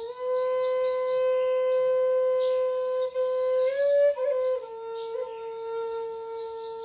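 Flute playing long held notes. It steps up briefly about four seconds in, then settles back on a sustained lower note, with birds chirping high above it.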